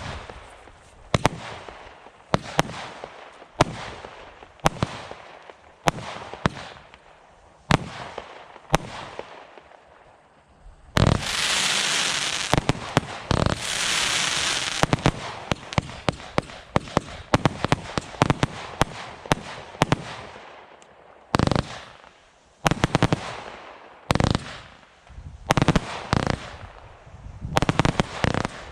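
Display firework cakes firing: single shots about once a second, each a sharp bang with a fading tail, then a few seconds of loud continuous rushing noise around the middle, followed by quick rapid-fire volleys of shots.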